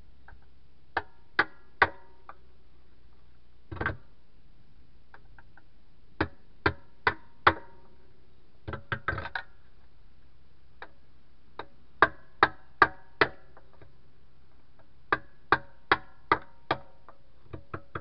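Sharp metallic clicks or taps from a hand tool worked against the steel rim of a tractor rear wheel. They come in runs of three to five, about two and a half a second, with short pauses between runs.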